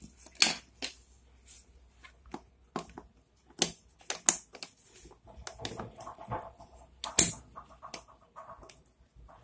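Sharp metal clicks and taps of pliers working the rocker-arm pins out of a Bajaj Boxer's aluminium cylinder head, with a stretch of scraping about halfway through.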